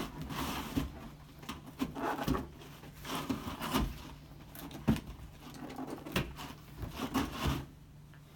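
Corrugated cardboard display carcass being handled as its corner click locks are pushed into place: a run of irregular clicks, knocks and cardboard rustles.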